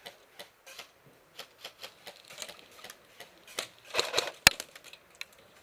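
Airsoft gunfire: irregular sharp clicks, several a second, with a louder cluster about four seconds in and one sharp crack just after.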